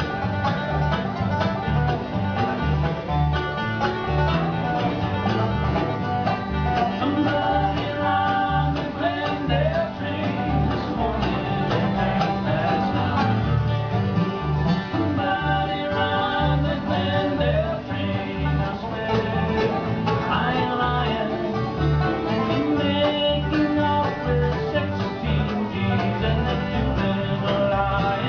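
Live bluegrass band playing: banjo, mandolin and acoustic guitar picking over an upright bass that keeps a steady beat.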